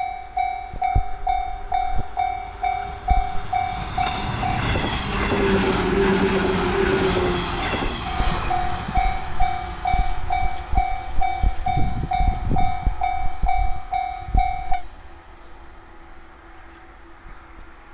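Japanese railway level-crossing alarm bell ringing its steady clanging rhythm, a little over two strikes a second, while a train passes through loudly about four to eight seconds in, with clicking of wheels over the rail joints after. The bell cuts off suddenly about fifteen seconds in once the train has cleared.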